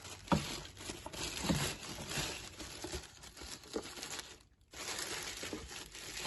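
Plastic liner bag crinkling and rustling as it is spread into a litter-box waste drawer, with a few light knocks from handling the drawer. It stops briefly a little past halfway, then picks up again.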